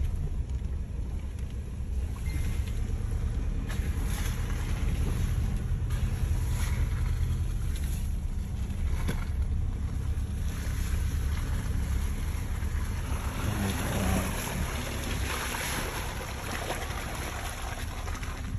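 A 2022 Raptor pickup truck driving slowly over a rough dirt track, heard from inside the cabin: a steady low rumble of engine and tyres. Wind hiss grows over the last few seconds.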